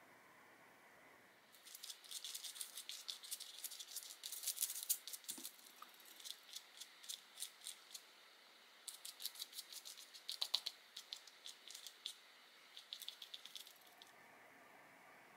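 Paintbrush scrubbing acrylic paint across paper in rapid, scratchy strokes, in two runs with a short pause near the middle.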